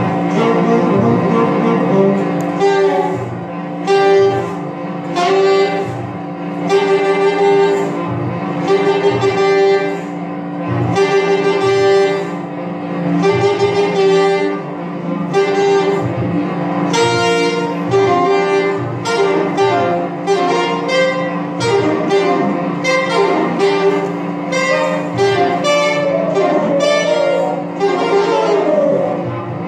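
Live jazz: a saxophone plays busy phrases over a held low drone, a repeated pulsing note and a bass line.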